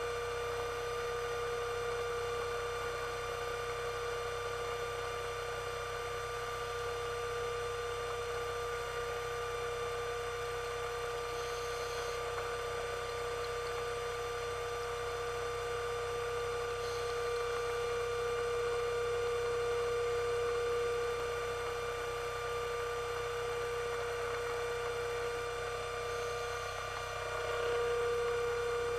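Underwater scooter (diver propulsion vehicle) motor running steadily: a constant whining hum, with faint brief hisses twice in the middle.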